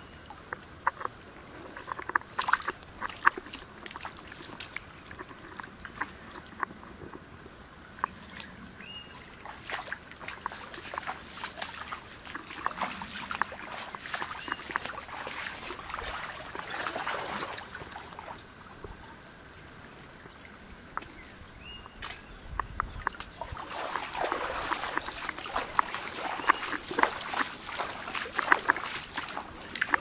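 Footsteps wading and splashing through a shallow, sandy stream: irregular wet steps and sloshes, louder a little past halfway and again through the last several seconds.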